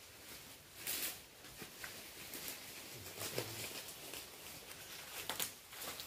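Irregular rustling and scuffing footsteps moving through vegetation, with short crackles scattered unevenly, the loudest about a second in and near the end.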